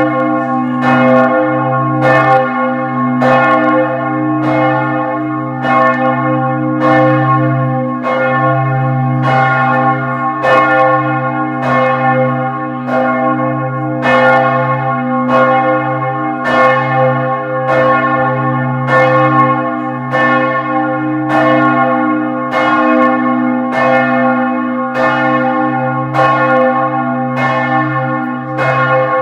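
Large church bell of Florence cathedral's bell tower, Giotto's Campanile, ringing in a steady run of strokes about once a second, with a deep hum sounding on between strokes.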